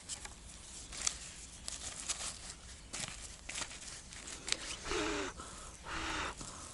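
Small campfire of dry twigs crackling, with scattered sharp pops throughout. About five and six seconds in come two short, louder breathy hisses.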